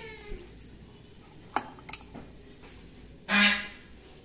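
A few light clicks and clinks of utensils against a steel mixing bowl during food preparation, with one louder short rushing noise about three seconds in.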